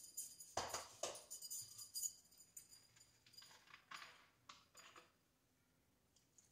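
Light shaking and clinking from sprinkling baking powder out of its container into a stainless steel sink: a handful of short rattles in the first five seconds, then it falls quiet.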